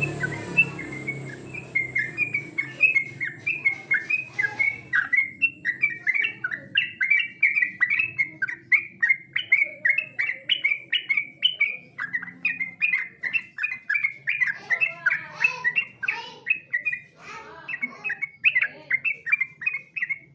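Yellow-vented bulbul (trucukan) singing a long, fast run of short chirping notes, about three a second, with a brief break near the middle.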